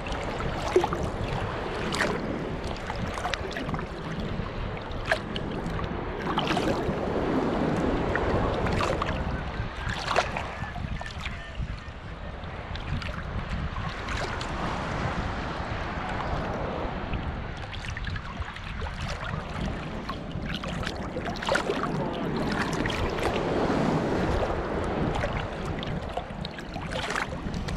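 Choppy Gulf of Mexico water sloshing and splashing around a camera held at the surface, swelling and easing every several seconds as small waves roll by, with many sharp splash ticks.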